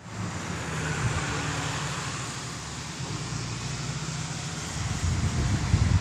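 A road vehicle driving by: a low, steady engine hum under a hiss of tyre noise, growing a little louder near the end.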